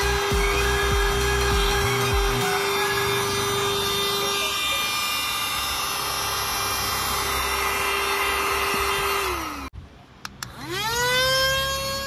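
Handheld cordless car vacuum cleaner's motor running with a steady whine, with low scraping rumbles in the first couple of seconds as the nozzle works the car carpet. About nine seconds in, the whine drops in pitch and cuts off. After a couple of clicks, the motor spins back up to a steady, higher-pitched whine.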